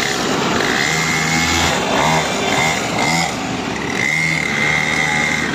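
Engine of a 49cc mini petrol dirt bike buzzing as it is ridden, swelling and easing off in a few surges as the throttle is opened and closed.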